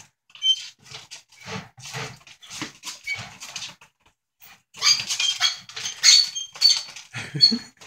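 A squeaky home workout machine squeaking in short irregular bursts as it is moved, mixed with a frightened pet ferret's animal cries. The squeaking gets louder and denser about five seconds in.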